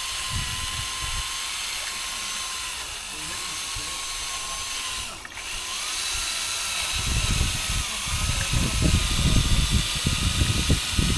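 A small motor whines steadily at one pitch over a hiss, stepping a little higher about six seconds in. From about seven seconds, low irregular rumbling joins it.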